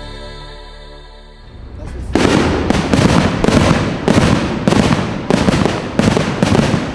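Intro music fading out, then about two seconds in a display of aerial fireworks starts going off: a rapid series of loud, echoing bangs, two to three a second.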